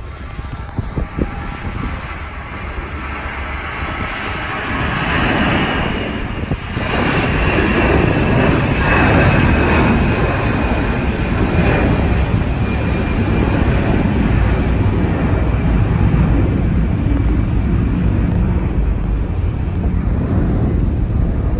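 Twin-engined Airbus A320-family jet airliner taking off and climbing away. Its jet noise builds over the first several seconds, with a high whine that falls slightly in pitch, then settles into a loud, steady rumble.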